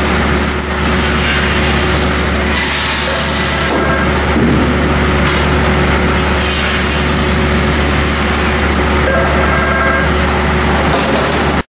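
Pendu high-speed two-saw lumber trimmer and its lugged chain transfer running: a loud, steady machinery din over a low hum. It cuts off suddenly near the end.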